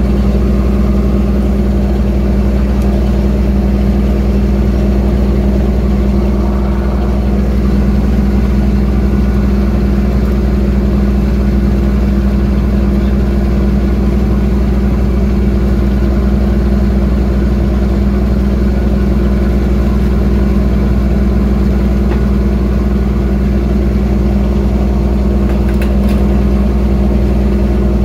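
A fishing trawler's diesel engine running with a steady low drone and an unchanging hum.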